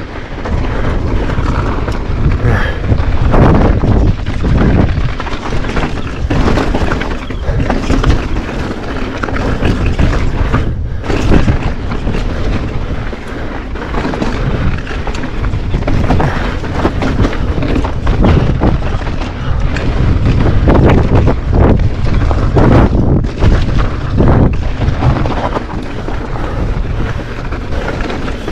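Heavy wind buffeting the camera microphone on a fast downhill mountain bike descent, with tyres running over loose dirt and rocks and irregular knocks and rattles from the bike over rough ground.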